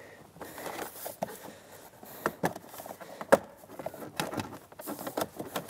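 Plastic interior trim panel on a Ford F-150's lower dash being pried off by hand: a scatter of light plastic clicks and knocks from its push-in clips, with one louder click about three seconds in.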